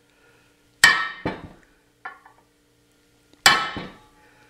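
A hammer strikes a steel socket to drive a needle-bearing sleeve into a CFMOTO Ibex 800T swing arm's pivot bore. There are two sharp, ringing metallic strikes about two and a half seconds apart, with a lighter knock or two between them.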